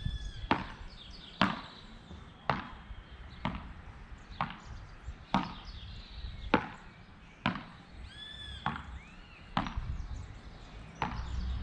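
Beach tennis paddles hitting the ball back and forth in a rally: about eleven sharp pops, roughly one a second.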